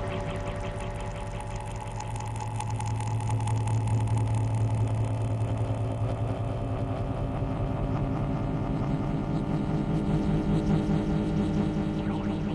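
Electronic synthesizer music: a sustained low drone under held tones with a fast, even pulsing flutter. The bass note moves higher about halfway through.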